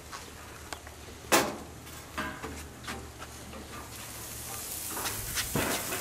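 Ribeye steaks sizzling on a hot gas grill, the sizzle growing louder in the last couple of seconds. Sharp clacks and clicks over it, the loudest about a second in.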